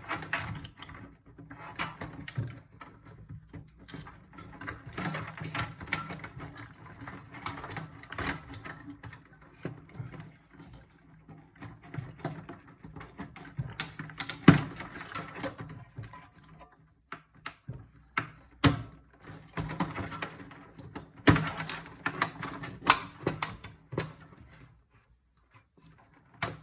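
Irregular clicks, knocks and rustling of hands handling the parts and cables of an old desktop computer being taken apart, with one sharper knock about halfway through.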